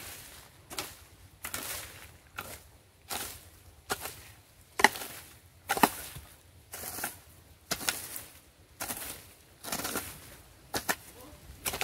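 Hoe blade chopping into grassy soil, a steady series of strokes about one a second, each a sharp hit with a short scrape of grass and earth after it.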